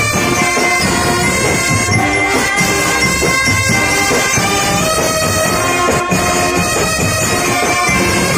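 Marching band playing: a line of trumpets sounds loud, long held notes that change pitch every second or so, over beats in the low end.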